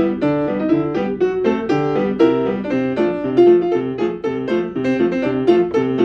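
A keyboard played with a piano sound: a tune in a steady rhythm, with chords and melody notes struck several times a second over a repeating bass line.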